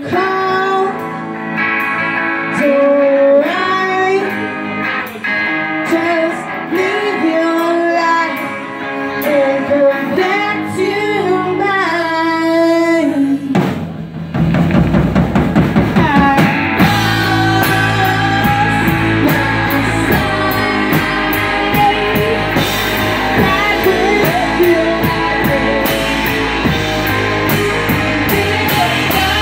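Live rock band playing: a woman's lead vocal over electric guitars, lighter in the low end at first. About halfway through, the drums and bass come in hard and the whole band plays louder and fuller.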